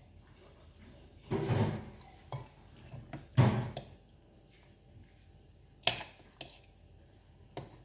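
Metal fork clinking and scraping against a plate while eating, with a few short sharp taps in the second half.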